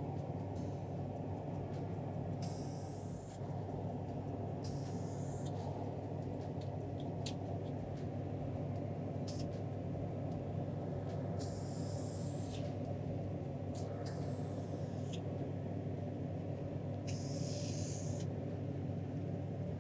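An aerosol can of Aluma-Hyde II spray paint hissing in short bursts of about a second each, about half a dozen times, as light coats go onto a hung rifle scope. A steady low hum from the spray booth's ventilation runs underneath.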